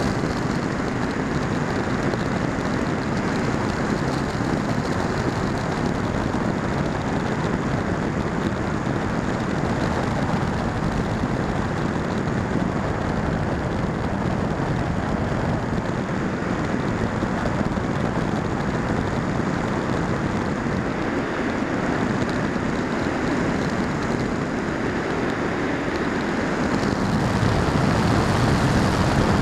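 Steady rushing airflow over the microphone of the action camera riding on a Firstar 2000 V2 FPV glider in flight, growing a little louder near the end.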